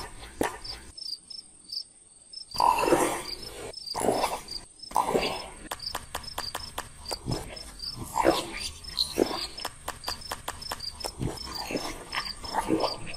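Insects chirping, short high chirps repeating about three times a second, with a thin steady high whine over them. Scattered sharp clicks and several short, louder sounds come over the chirping, and nearly everything drops out for about a second and a half near the start.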